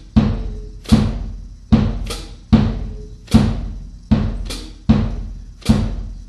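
Drum kit played slowly in an even pulse: bass drum strokes about once every 0.8 seconds, each ringing out, with the snare joining on the first count and left-foot hi-hat pedal chicks on the off-beats between.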